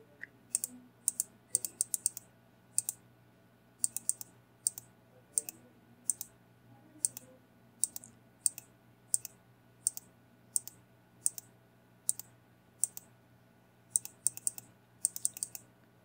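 Computer mouse clicking: sharp single clicks and quick pairs every half second to a second, over a faint steady hum.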